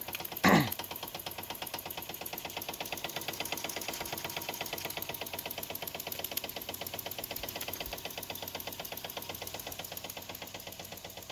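Wilesco toy steam engine running fast, with a rapid steady chuffing and rattling from its single cylinder and spinning flywheel. The pistons are worn, and the engine is poorly balanced. A brief loud sound falling in pitch comes about half a second in.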